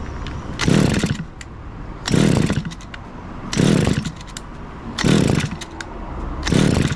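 Kawasaki TF22 engine pump's small two-stroke engine running unevenly. Its revs surge up and fall back five times, about once every second and a half, hunting instead of settling to a steady idle, with the carburettor's screw set to one turn out. The owner judges that it still isn't right.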